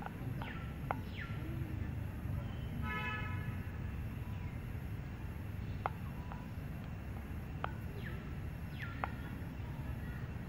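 Outdoor ambience: a steady low rumble with a faint high whine pulsing a few times a second, a few sharp clicks and short descending chirps, and a brief horn-like pitched tone about three seconds in.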